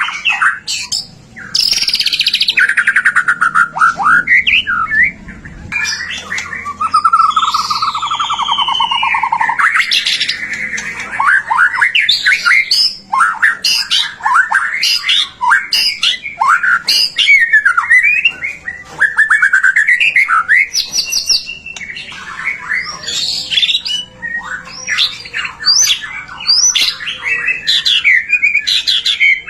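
White-rumped shama (murai batu) in full song: a long, varied run of loud whistles, rapid trills and sweeping notes with only brief gaps.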